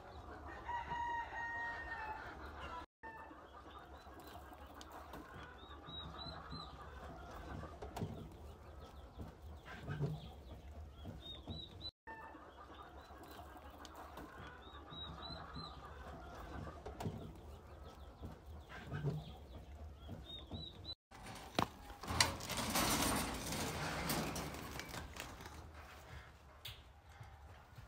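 Chickens clucking with a rooster crowing, and short high chirps recurring every few seconds. A few seconds of loud noise come near the end.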